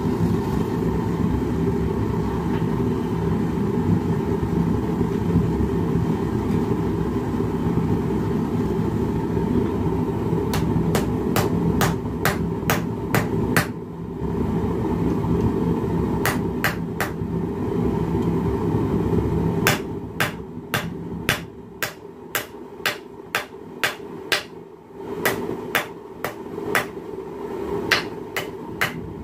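Hand hammer striking hot steel on a small anvil, sharp ringing blows in runs of about two to three a second, starting about ten seconds in, drawing out and flattening a forged leaf. Under it the gas forge's burner runs with a steady low roar that falls away about twenty seconds in.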